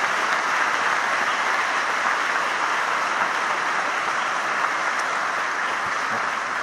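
A large crowd applauding steadily, dying down slightly near the end.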